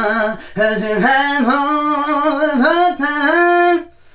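A man singing a wordless lead vocal line into a studio microphone, in sustained notes that slide and bend from one to the next, stopping shortly before the end.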